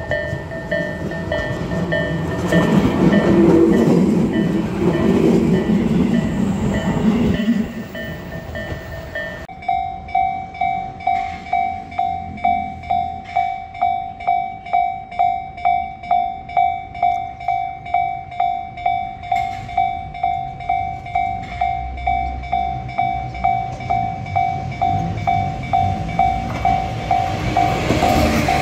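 An electric commuter train rumbling past, then from about ten seconds in a railway level-crossing warning bell ringing steadily about twice a second.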